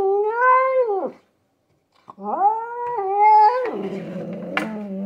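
Domestic cat yowling at a rival cat in a territorial standoff, in long wavering howls. One yowl ends about a second in; after a short pause a second rises and turns into a rough low growl near the end. A sharp click sounds just before it stops.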